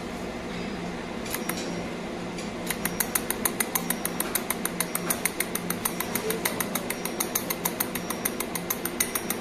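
Thulium fiber laser firing at a kidney stone under water: a few seconds in, a rapid, even train of sharp clicks starts as the pulses strike and break up the stone. A steady fan hum from the laser console runs underneath.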